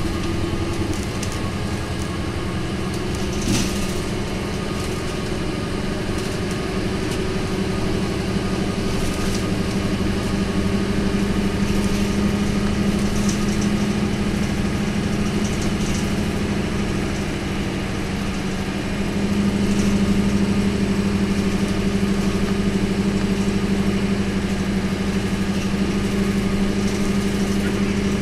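The V8 diesel engine of an Isuzu Cubic KC-LV280L city bus running hard at speed, heard from inside the bus with road noise. The engine note climbs slowly over the first ten seconds and gets louder about nineteen seconds in. There is a single knock early on.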